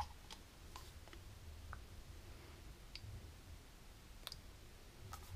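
A few faint, scattered clicks from a plastic bottle and its plastic packaging tray being handled, over a quiet room background.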